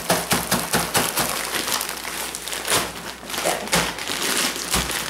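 Plastic bag of frozen peas crinkling as it is shaken and handled, the peas pouring out into a slow cooker, with irregular crackles throughout.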